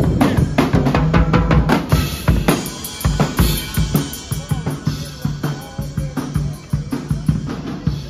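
A street drummer playing a full drum kit: a fast, busy beat of bass drum, snare and cymbals, growing fainter over the last few seconds.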